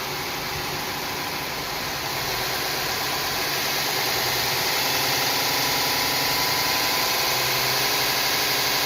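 Grizzly 2x42 knifemaker's belt grinder running free with no workpiece, its variable-speed motor being turned up. It grows louder over the first few seconds as the motor and belt speed up, then runs steadily.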